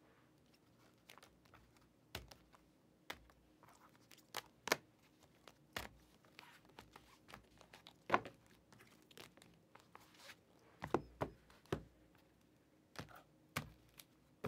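Trading cards and pack wrappers handled on a table: irregular clicks and taps, with short bursts of crinkling and tearing.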